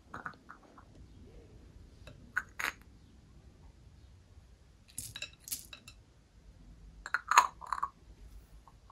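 Light clinking and tapping of small hard objects against a container, in four short clusters a couple of seconds apart, the last near the end the loudest.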